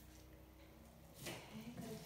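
Quiet room tone, then about a second in a short rustle of flower stems and foliage being handled.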